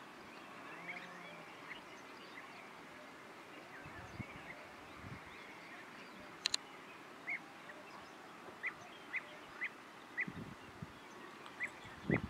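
European bee-eaters calling: short, clipped notes, a few faint ones early and then a run about every half second from about seven seconds in. Two sharp clicks about six and a half seconds in are the loudest sound.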